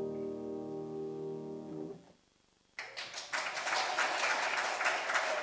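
The final chord of a piano piece rings and is released about two seconds in; after a brief silence the audience applauds.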